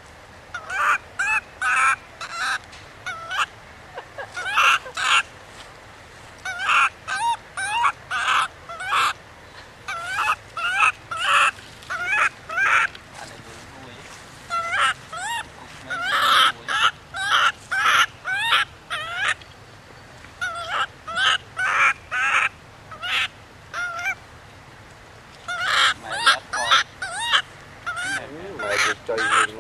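Baby macaque crying: short, high-pitched cries repeated in quick runs of several, with brief pauses between runs. These are an infant's distress cries for its mother's care and attention.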